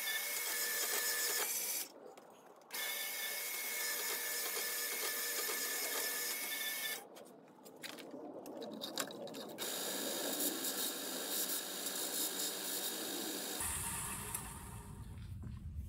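Portable bandsaw running and cutting a piece of G10. It stops briefly about two seconds in and again for a couple of seconds around the middle, then runs again.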